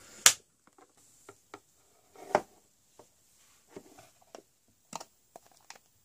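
Clicks and taps of a small plastic snap-lock food container being handled: a sharp click about a third of a second in, a second click a couple of seconds later, then scattered light taps.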